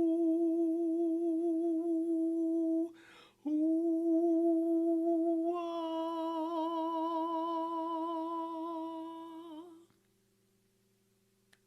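A single voice toning one long held note with a slight waver. It breaks for a quick breath about three seconds in, then resumes, turning into a brighter open vowel about halfway through. It fades out near the end.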